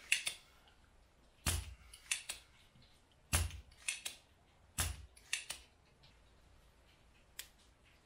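Spring-loaded desoldering pump (solder sucker) firing as it sucks molten solder off a circuit-board joint. Sharp snaps about a second and a half, three and a half and five seconds in, with fainter clicks between them as the plunger is worked.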